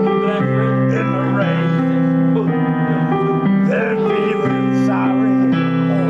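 Music: a song played on guitar over held chords, with singing that comes and goes.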